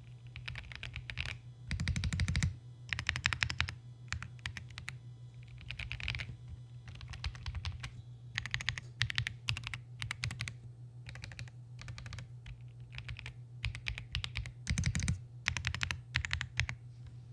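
Royal Kludge R75 mechanical keyboard being typed on: quick runs of keystrokes in bursts with short pauses between them.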